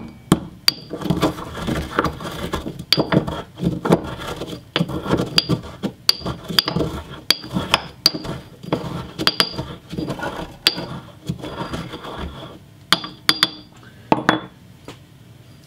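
Vitamin C tablets being ground with a pestle in a ceramic mortar: repeated grinding and scraping strokes with sharp clinks of pestle against bowl, and a few sharp knocks near the end before it stops.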